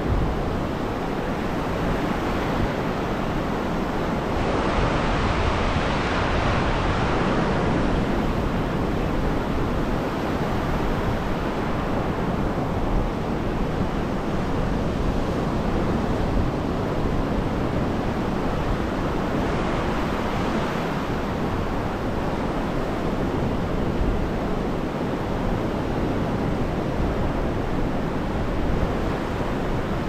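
Mediterranean surf breaking and washing up the beach as a continuous roar, swelling louder about five seconds in and again around twenty seconds in, with wind rumbling on the microphone underneath.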